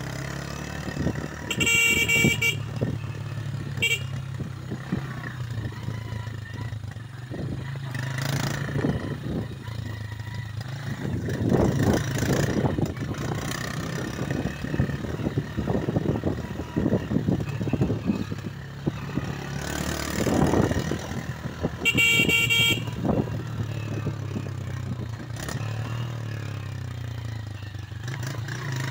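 Motorcycle engine running steadily under way on a rough dirt track, with knocks and rattles from the bumps. A horn beeps three times: about two seconds in, a quick tap at four seconds, and again around twenty-two seconds.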